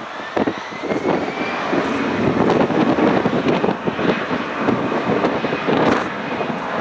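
Airbus A320's jet engines running at taxi power as the airliner turns onto the runway, a steady jet noise with a faint whine that rises slightly in pitch in the first couple of seconds.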